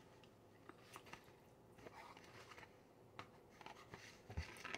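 Near silence, with faint scattered clicks and soft scrapes of a fork digging into a coconut cream pie, and a dull thump near the end.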